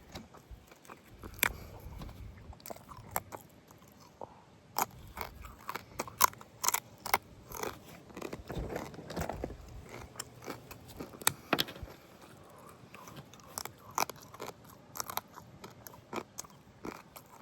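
Close-miked chewing and biting of rotisserie chicken, with irregular sharp crunching clicks throughout.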